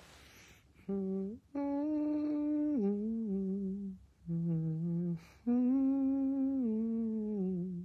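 A man humming a slow, wordless tune in long held notes, stepping down in pitch at the ends of phrases, with short audible breaths between phrases.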